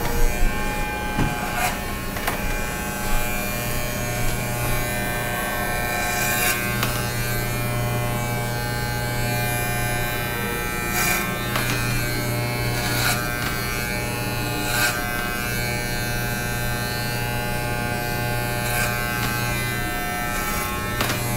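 Corded electric hair clippers running with a steady buzz as they cut short hair, with a few brief sharp ticks scattered through.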